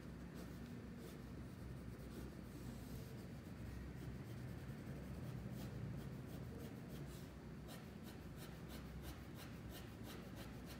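Faint scratching of a mechanical pencil's graphite on paper in many quick, short strokes, as strands of straight hair are sketched.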